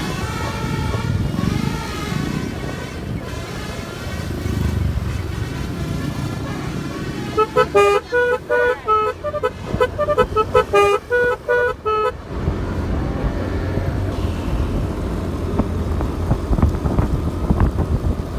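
Basuri keong telolet horn playing a quick tune of short, clipped notes, starting about seven seconds in and lasting some five seconds. Noisy background sound comes before the tune, and a low engine rumble follows it.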